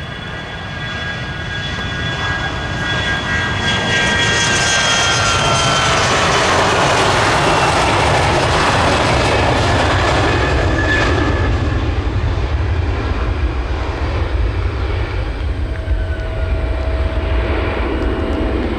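Mitsubishi CRJ-700 regional jet's twin turbofans at takeoff power, passing on its takeoff roll. A high engine whine slides gently downward as it goes by, the sound builds to its loudest a few seconds in, then a steady low rumble as the jet climbs away.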